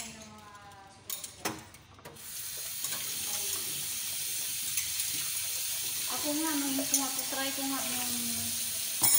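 A couple of knocks, then a kitchen tap turned on about two seconds in, with water running steadily into the sink.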